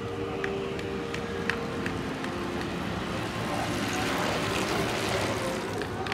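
Pack of track bicycles riding past: a rushing hiss of tyres and wind that swells to its loudest about four to five seconds in, with a few light ticks early on.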